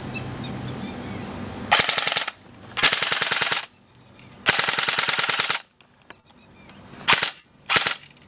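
CYMA CM049J (MP5 J) airsoft electric gun firing full-auto in five bursts, three longer ones and then two short ones near the end, its gearbox and electric blowback bolt cycling rapidly. The high rate of fire comes from an 11.1 V LiPo battery.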